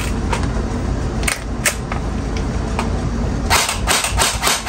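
Airsoft rifle being triggered: a few single sharp clicks, then near the end a rapid string of about six clicks, around five a second, as the gun dry-fires without shooting BBs. A steady low rumble runs underneath.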